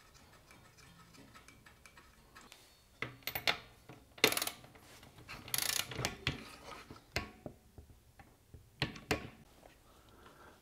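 Ratcheting torque wrench tightening a spark plug into the cylinder head of a Briggs and Stratton 163 cc OHV small engine: short bursts of ratchet clicking and a few sharp single clicks, the sharpest about four seconds in.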